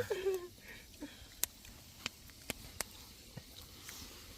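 A few faint, sharp clicks spread irregularly over a few seconds, against a quiet background.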